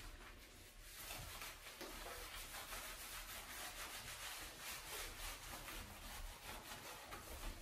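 Hands scrubbing shampoo lather through a wet golden retriever's coat: a faint, quick, repeated rubbing that starts about a second in.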